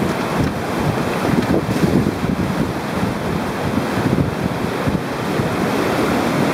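River rapids rushing and splashing around a raft, with heavy wind buffeting the microphone.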